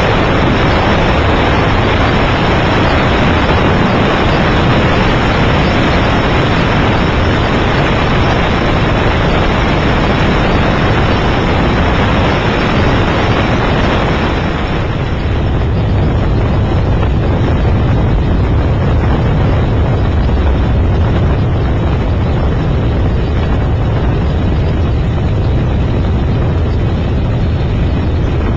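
Steady, loud engine and air noise from a light sightseeing aircraft in flight. About halfway through the higher hiss fades and a deeper rumble comes forward.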